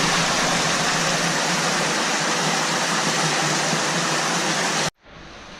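Underground waterfall in a cave stream, a loud steady rush of falling water that cuts off abruptly near the end.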